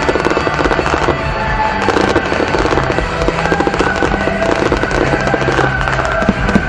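Aerial fireworks show: a dense, continuous crackle of bursting shells, with music playing underneath.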